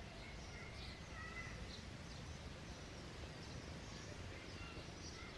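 Small birds chirping outdoors: many quick high chirps and a few short whistled notes, over a steady low background rumble.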